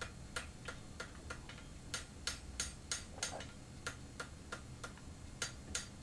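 Hand hammer striking a red-hot strip of old rasp steel on an anvil in quick, even, sharp blows, about three a second, drawing the thin knife blade out and thinning it.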